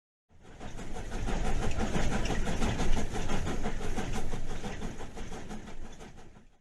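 A train running with a quick, regular beat. It fades up a moment after the start, holds, then fades away near the end.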